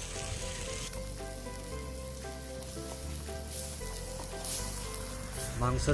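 Onion and spice pastes sizzling steadily as they fry in mustard oil in a kadai, with faint background music.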